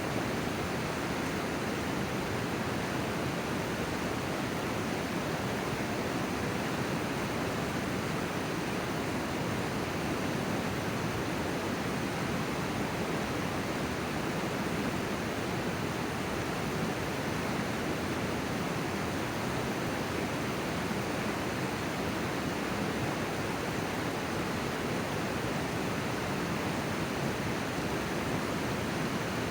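Steady rush of a flowing river, an even wash of water noise.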